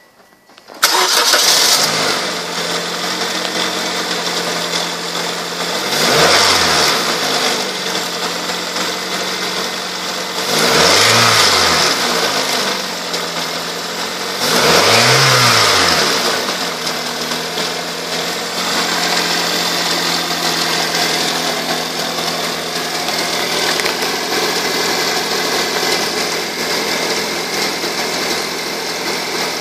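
The 1.8-litre four-cylinder VVT-i engine of a 2006 Toyota Corolla S starts up about a second in and idles. It is revved briefly three times, each time rising and falling back, then runs at a steady idle.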